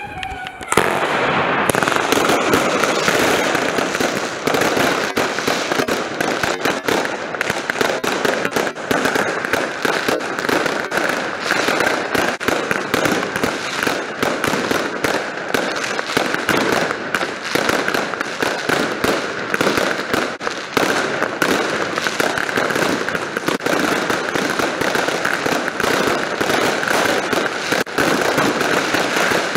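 Aerial fireworks firing in a rapid, continuous barrage of bangs and crackles, starting suddenly about a second in and running on without a break.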